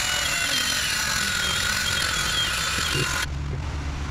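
Handheld belt file running, its narrow abrasive belt grinding a beveled edge, with a steady high whine over a loud hiss. It cuts off suddenly about three seconds in.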